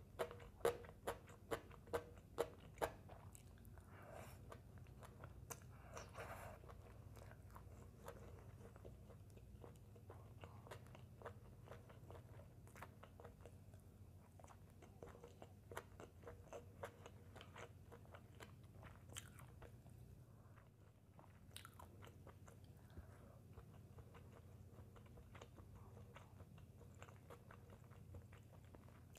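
Close-miked chewing and crunching of crispy fried fish and shredded green papaya salad, with wet mouth clicks. A run of sharp, louder crunches in the first few seconds gives way to softer steady chewing.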